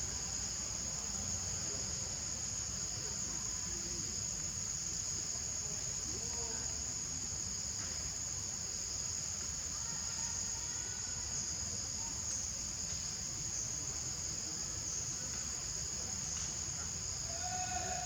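Steady high-pitched chorus of insects droning without a break, over a low rumble.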